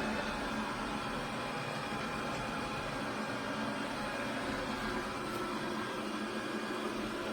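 A motor running with a steady whirring hum, unchanging throughout.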